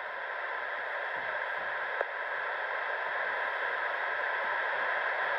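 Steady hiss of railroad scanner radio static, the channel held open between spoken words of a transmission, slowly getting louder.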